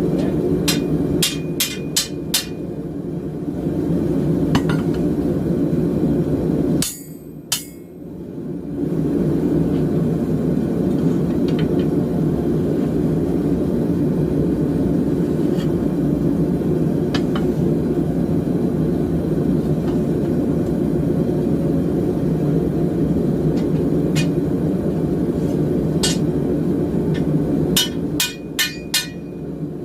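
Hammer blows on steel, sharp ringing strikes in quick runs of about five near the start and again near the end, with a few single blows between, over the steady noise of a running forge. The forge noise drops away for about two seconds a few seconds in.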